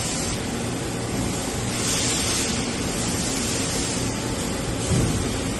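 Automatic tool changer of an Awea LP4025Y bridge-type CNC machining center running a tool change: a steady hiss with a louder high hiss about two seconds in and a short knock near the end.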